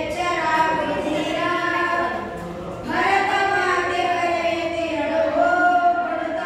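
Two schoolchildren singing a Kannada patriotic song (desha bhakti geethe) together without accompaniment, with a short breath pause a little over two seconds in before the song goes on.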